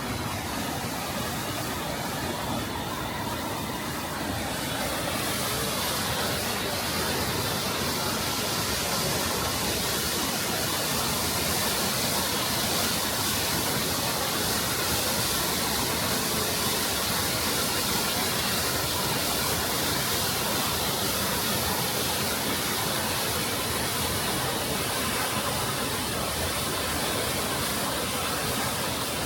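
Düden Waterfall's water rushing: a steady, loud roar of falling water that grows a little louder and brighter about five seconds in.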